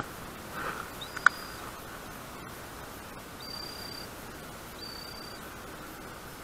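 A fishing reel handled at close range: one sharp click about a second in, over a steady hiss. Three short, high, steady whistles come and go during it.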